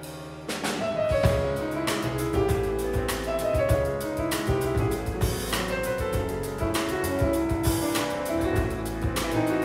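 Jazz piano trio playing live: piano, double bass and drum kit with cymbals. After a softer opening moment the full band comes in about half a second in.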